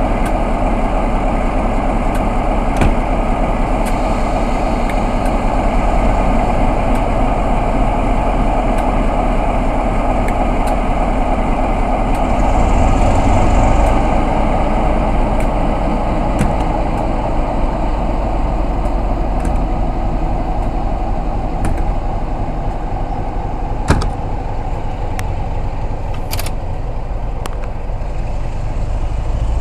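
Class 47 diesel-electric locomotive's Sulzer twelve-cylinder engine running steadily, growing louder for a couple of seconds about twelve seconds in as the train moves off. A couple of sharp clicks come near the end.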